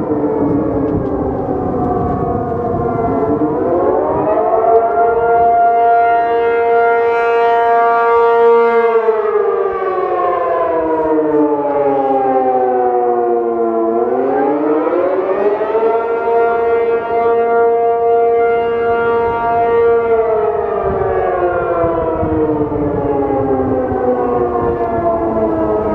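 ACA P-50 outdoor warning siren sounding the Attack signal: a loud two-tone wail that rises, holds steady for several seconds, then slides slowly down, twice over.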